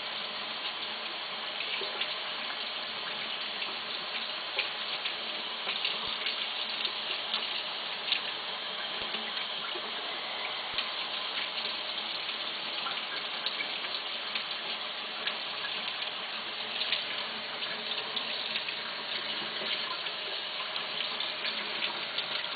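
Tap water running steadily into a sink, with small splashes and drips as a monkey is bathed in it.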